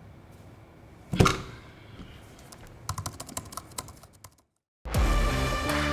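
A single thunk about a second in, then a quick run of computer-keyboard typing clicks; the sound cuts out briefly and electronic music with a steady beat starts near the end.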